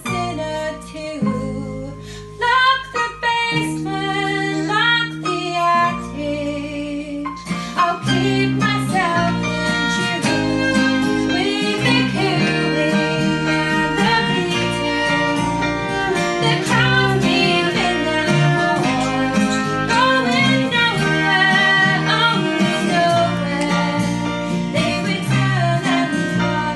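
Live small-band music with piano, bass and viola. A melody with vibrato over held low notes opens the passage, then the fuller ensemble comes in about seven seconds in and plays on at a steady, louder level.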